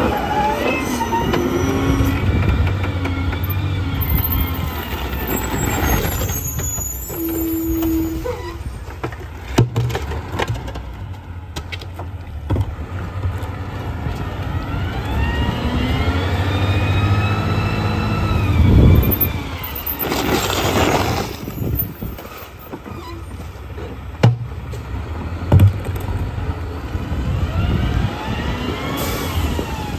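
Mack rear-loader garbage truck's diesel engine idling and revving up and back down, the rev-ups that drive the packer hydraulics while trash is loaded into the hopper. About two-thirds through comes a short burst of air hissing, and a few sharp thumps are heard in the second half.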